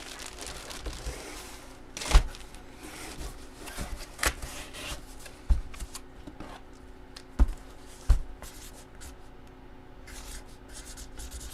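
Hands handling packaging and items on a tabletop: rubbing and rustling, with about five short knocks spread through.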